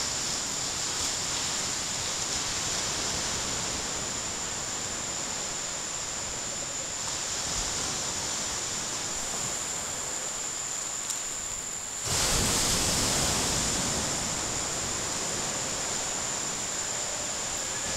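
Outdoor forest ambience: a constant rushing noise under a steady, thin high-pitched whine. The rushing grows suddenly louder about twelve seconds in.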